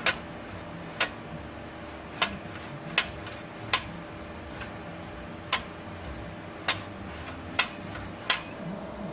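About nine sharp clicks, spaced irregularly around a second apart, while tool heights are set on a CNC lathe, over a steady machine hum.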